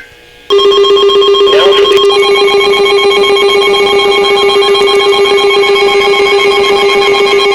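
Emergency Alert System attention signal: a loud, steady electronic alarm tone cuts in abruptly about half a second in, with further tones joining about two seconds later. It announces an incoming emergency alert.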